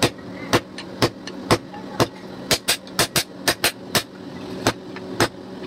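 Hand hammer striking red-hot steel on an anvil while forging a knife blank. Sharp ringing blows land about twice a second, with a quicker run of lighter strikes in the middle, over a steady low hum.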